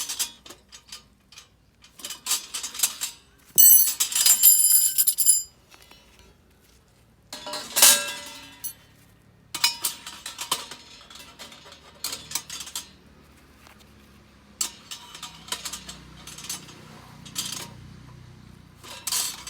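Steel parts of a knock-down BBQ grill clinking, scraping and clanking as they are fitted together. There is a ringing metallic scrape lasting a couple of seconds about four seconds in, and the loudest clank comes a few seconds later.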